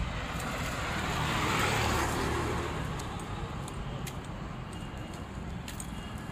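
Road traffic: a vehicle passes, its noise swelling and fading over the first couple of seconds, over a steady background of street traffic, with a few faint light ticks.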